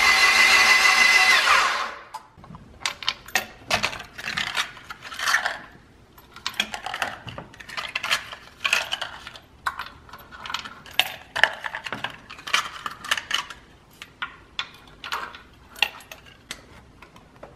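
A loud steady whirring hiss with a fixed high whine cuts off about two seconds in. After it come many light metallic clicks, clinks and rubbing sounds as hands handle small parts at the spark plug wells on top of a Honda H22 engine.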